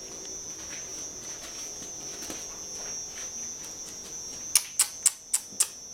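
Five sharp clicks or knocks in quick succession near the end, over a steady high-pitched tone and faint scattered ticks.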